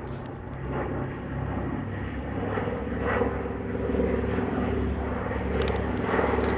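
Aircraft engines running steadily, getting a little louder from about two seconds in.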